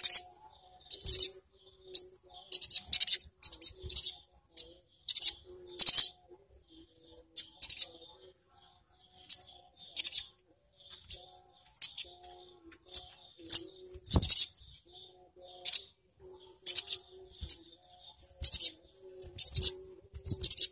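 A caged sogok ontong (sogon) sunbird calling over and over with short, sharp, high-pitched rattling chirps, roughly one burst a second. A single knock comes about two-thirds of the way through.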